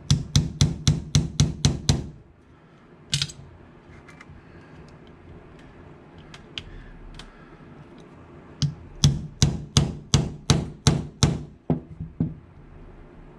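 Small brass hammer tapping a pin punch to drive the charging-handle drift pin out of a Steyr AUG's aluminium receiver. Two quick runs of about ten sharp taps, one at the start and one in the second half, with a few lighter taps between. The pin is tight and not coming out easily.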